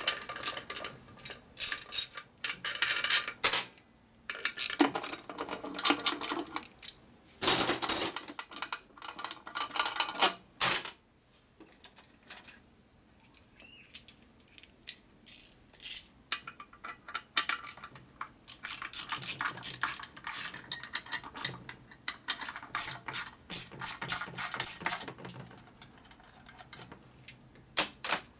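Hand ratchet clicking in quick runs as bolts are backed out of a Harley-Davidson Milwaukee-Eight engine case, with metallic clinks of loose bolts and sockets between runs. There is a quieter stretch in the middle.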